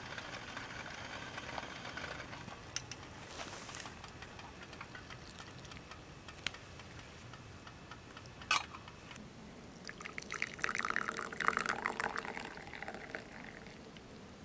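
Green tea pouring from the spout of a lidded stainless steel Sierra cup into a small ceramic cup, a splashing stream for about three seconds in the second half. Earlier come a few light metal clicks, the sharpest just past the middle as the lid is handled.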